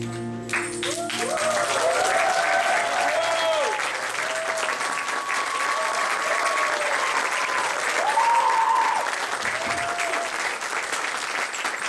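The song's last held chord stops about half a second in, and the congregation applauds, with scattered voices calling out over the clapping.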